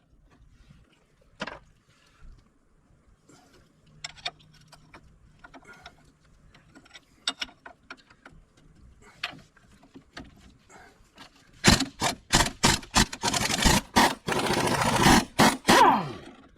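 Ingersoll Rand air impact wrench. After a stretch of faint clicks and clinks of tools, it fires in several short rattling bursts from about 12 seconds in, then runs continuously for about two seconds and winds down with a falling whine near the end.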